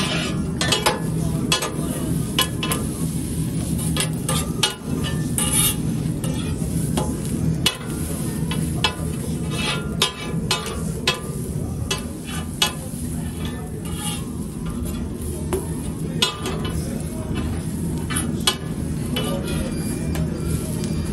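Pressed toast sandwiches sizzling on a large flat steel griddle, with a knife blade scraping and tapping on the steel and a metal press clinking, in many short strokes over a steady low hum.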